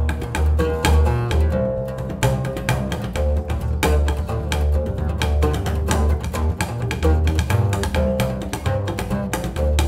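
Acoustic duo of oud and double bass: the oud is picked in a quick run of notes over a low plucked bass line.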